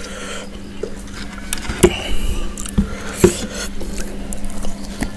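Close-miked eating of fried free-range chicken with sambal and rice: wet chewing and lip smacks, with a handful of sharp clicks, over a faint steady hum.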